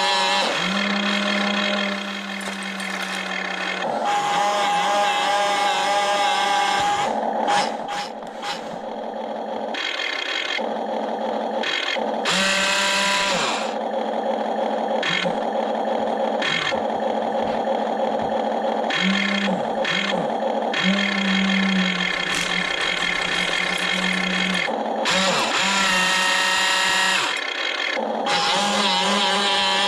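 Electric motors of a remote-control excavator whining as its arm and tracks are worked, cutting in and out and changing pitch every few seconds as different controls are moved.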